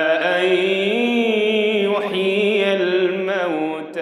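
Quran recitation: a man's voice chanting in the melodic tajweed style, drawing out one long phrase with a wavering, ornamented pitch.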